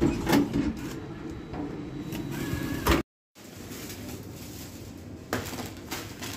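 Rustling and clattering handling noises, broken by a brief gap of dead silence about three seconds in. In the second half, snack packets crinkle as they are handled on a shop counter.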